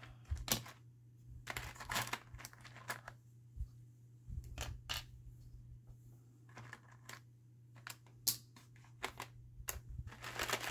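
Baked polymer clay tiles clicking and tapping against one another and their container as they are picked through: scattered, irregular light clicks.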